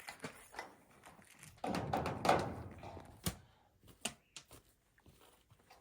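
Plastic water bottle and filter being handled: a rustling scrape about two seconds in, then several sharp clicks and knocks.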